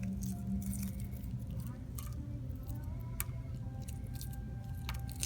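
Eggshell crackling in a few sharp little cracks as it is peeled by hand off a cooled hard-steamed egg, over a low steady hum.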